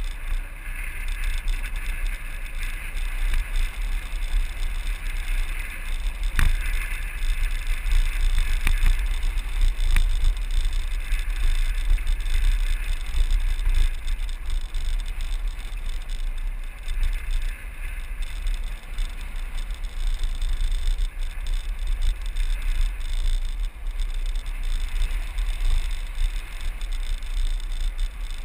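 Land yacht sailing across a hard dry lakebed: wind buffeting the mounted camera's microphone as a steady, fluctuating low rumble, over a constant hiss of the wheels rolling on the lakebed. Two sharp clicks sound, about six and ten seconds in.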